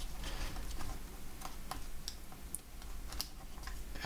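Scattered light clicks and taps, about eight in four seconds at irregular spacing, from hands and small tools working inside an opened MacBook Pro around its battery connector.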